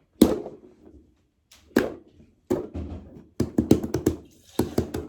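Hands hitting and tapping a toy: two sharp thumps, then from about halfway in a fast, even run of taps, about five or six a second.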